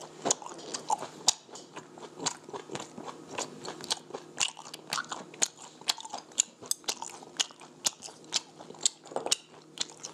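A man chewing food right at a clip-on microphone: a run of sharp, irregular crunches and mouth clicks, about three or four a second.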